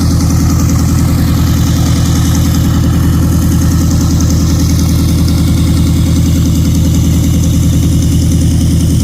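Piston engine running steadily at idle close by, a loud, even low drone with no change in speed.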